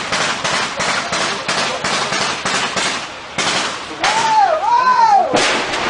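Gunfire in a firefight: a steady run of sharp shots, about three a second, through the whole stretch. Near the end a high rising-and-falling tone sounds twice over the shooting.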